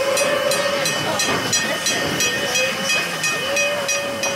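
Coal-fired two-foot-gauge steam locomotive running, with steam hissing and exhaust beats at about three a second. A steady high tone is held through the first second and again near the end.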